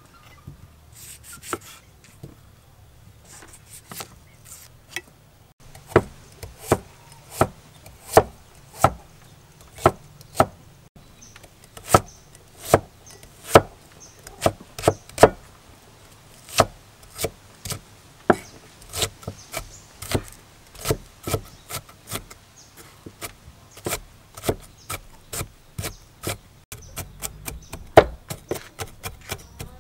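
Steel cleaver chopping a red onion on a thick wooden chopping block, each stroke a sharp knock of blade on wood. The knocks are faint and sparse at first, then steady at one or two a second from about six seconds in, and quicken into faster runs of mincing chops near the end.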